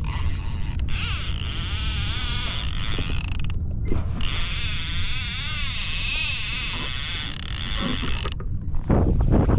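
Fishing reel drag screaming as a hooked fish strips line on a fast run. The high zing wavers in pitch, breaks off briefly just under a second in and again for about half a second a third of the way through, then stops about a second before the end.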